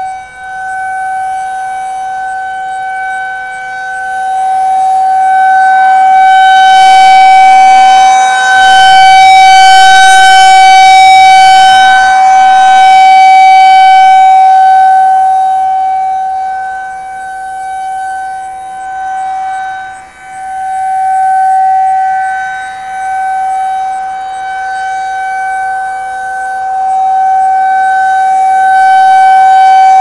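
Federal Signal 2001-SRNB rotating siren sounding a steady single-tone alert. Its loudness swells and fades over about 20 seconds as the horn slowly turns toward and away, loudest around the middle, faintest about two-thirds of the way in, then rising again near the end.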